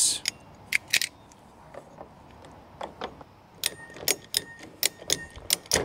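Ratcheting PEX tubing cutter clicking as its handles are squeezed to cut through half-inch PEX tubing: a few scattered clicks, then a quick run of clicks over the last two seconds.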